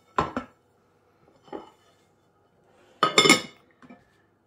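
Glazed ceramic plates clinking as they are laid over plastic mixing bowls as lids: a few separate clinks, the loudest about three seconds in, ringing briefly.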